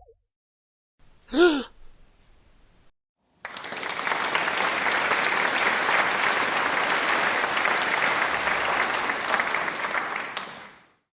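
A short voiced gasp, then polite applause from an audience that runs for about seven seconds and fades out near the end.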